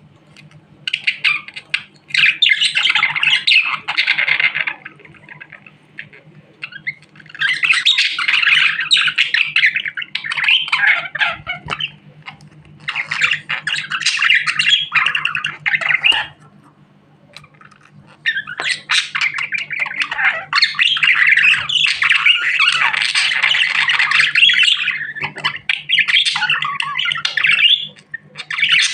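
Budgerigar chattering and warbling in lively bouts of several seconds, broken by brief pauses of a second or two.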